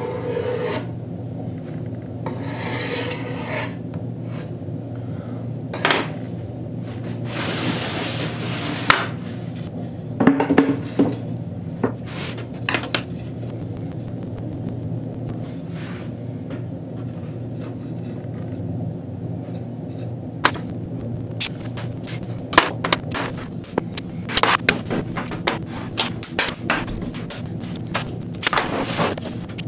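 Valchromat panels slid and rubbed against each other and the bench as they are fitted together, with a few knocks. In the last third a pneumatic nail gun fires a quick series of sharp shots into the panels. A steady low hum runs underneath.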